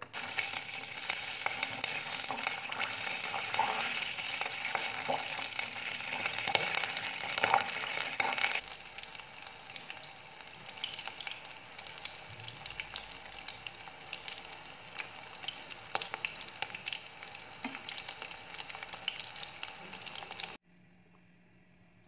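Breadcrumb-coated pieces deep-frying in hot oil in a pot: a steady crackling sizzle dotted with small pops. It is louder for the first eight or so seconds, then softer, and it cuts off abruptly about twenty seconds in.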